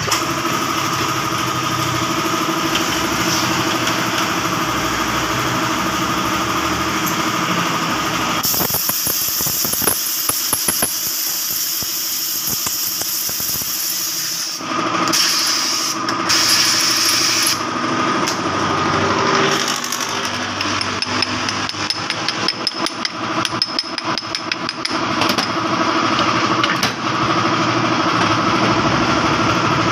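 Workshop bench work: a steady machine hum under repeated metal taps and knocks, with a stretch of hiss a little before the middle.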